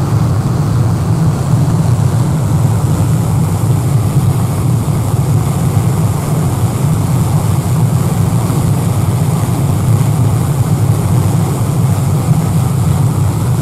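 Large car ferry's 4,400-horsepower diesel engines running at full throttle, a deep, steady rumble with churning propeller wash and wind on the microphone.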